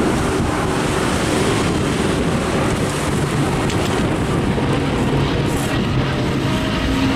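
Avro Lancaster bomber's four Rolls-Royce Merlin V12 engines running steadily as it flies past, with wind noise on the microphone.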